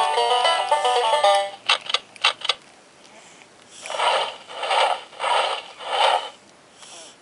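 A children's electronic sound book plays a short, tinny synthesized tune that cuts off about a second and a half in, followed by a few sharp clicks. After a pause come four evenly spaced hissing bursts, about one every two-thirds of a second.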